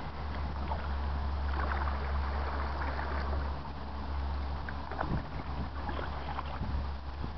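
Kayak being paddled close along a riverbank: scattered paddle splashes and small knocks, over a steady low rumble of wind on the microphone.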